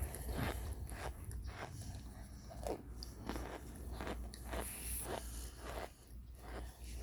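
A person chewing crunchy food close to the microphone, about three crunching bites a second, growing fainter near the end.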